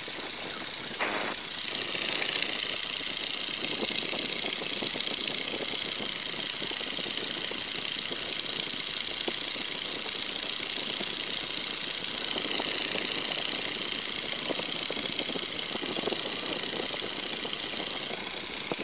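Boeing N2S-3 Stearman's Continental R-670 seven-cylinder radial engine running steadily at climb power, with air rushing past the open cockpit. There is a brief click about a second in.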